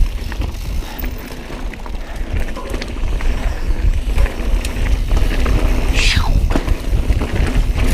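Mountain bike riding over a rocky dirt trail: a steady low rumble of tyres and wind on the camera mic, with scattered clicks and rattles. A short high squeal falls in pitch about six seconds in.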